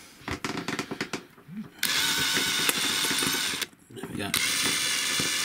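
DeWalt 18V cordless drill boring slowly through the head of a stainless-steel pop rivet, running in two spells with a short break between. Some clicking comes before the first spell, as the bit is set on the rivet.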